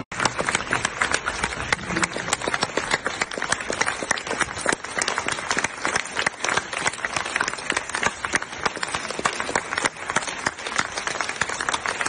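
Theatre audience applauding: a dense, steady patter of many hands clapping, with sharper claps from someone close by standing out.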